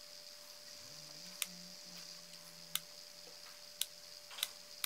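Sharp plastic clicks from a cheap clamp ammeter being handled, about five at uneven spacing that come closer together near the end, over a faint steady hum.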